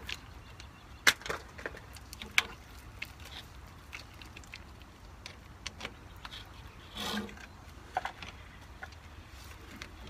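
Scattered light metallic clicks and clinks of battery cable ring lugs being handled and fitted onto the stud of a battery disconnect switch, with a short scuff about seven seconds in.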